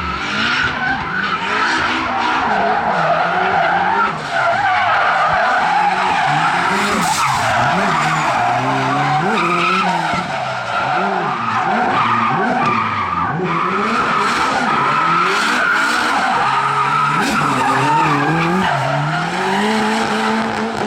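Drift car on a practice run: the engine revs rise and fall over and over as it is driven through the drift, with the tyres squealing steadily.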